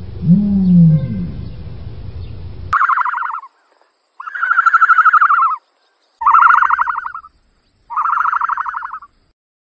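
Ostrich calls: first a low hooting call that rises and falls in pitch. Then, about three seconds in, four raspy, pulsing calls at a higher pitch, each about a second long, with short pauses between them.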